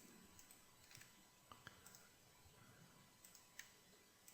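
Near silence with a few faint computer mouse clicks, scattered and irregular; the clearest comes about three and a half seconds in.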